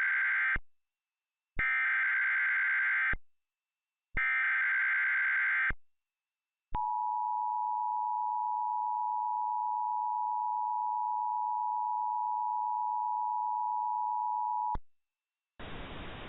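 Emergency Alert System header: the tail of one short burst of buzzy digital data tones and two more full bursts, then the EAS attention signal, a steady two-tone beep (853 and 960 Hz) held for about eight seconds, which announces that an emergency alert follows. A low hiss starts near the end.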